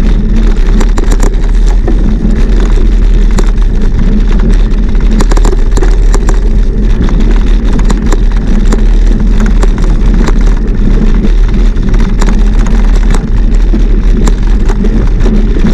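Wind rushing over an action camera's microphone while riding a mountain bike: a loud, steady low rumble with scattered clicks and rattles.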